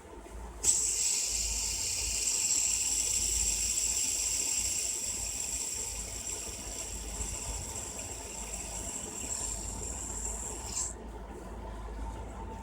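Fidget spinner flicked into a spin about a second in: its ball bearing gives a steady high whir that slowly fades, then cuts off suddenly near the end.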